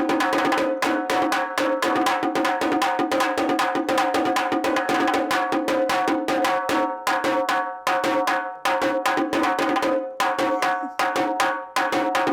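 Parai frame drum beaten fast with its two sticks in a dense, driving rhythm, the skin ringing under the strokes, with short breaks in the beat about eight and ten seconds in.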